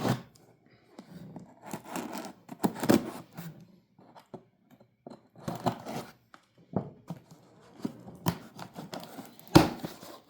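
A cardboard box being opened by hand: tearing and rustling in irregular bursts, with a sharp knock near the end.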